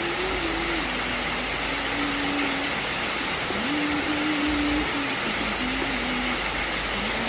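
Steady hiss of heavy rain, with a faint tune held note by note over it.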